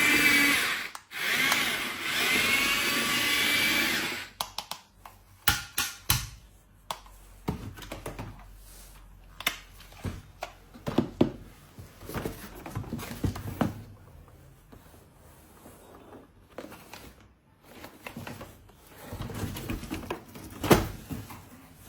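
A small electric motor whirring steadily, its pitch wavering slightly, that stops about four seconds in. Scattered clicks and taps of handling follow.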